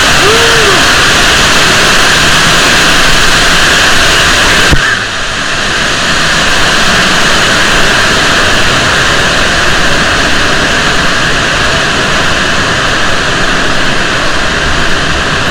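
Loud, steady rushing noise with no clear pitch, changing abruptly in character about five seconds in.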